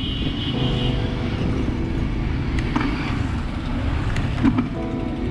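Wind and road rumble on a camera mounted on a moving bicycle, mixed with the engines of passing motorcycles and tricycles.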